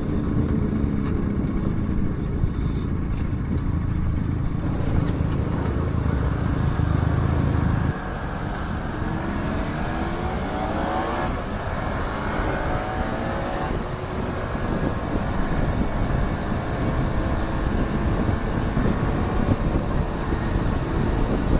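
Motorcycle engine running on the road with wind rushing past the microphone. The low rumble drops suddenly about eight seconds in, then the engine note rises a few times as the bike accelerates.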